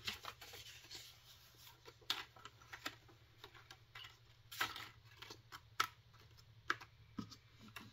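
Paper banknotes being handled: a few scattered soft rustles and light taps as bills are pulled from and slid into a bill rack.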